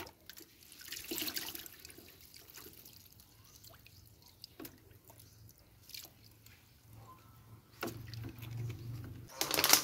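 Liquid poured by hand from a small plastic jug into a plastic bottle, with soft dips and splashes as the jug scoops from a bucket, and a louder noise near the end.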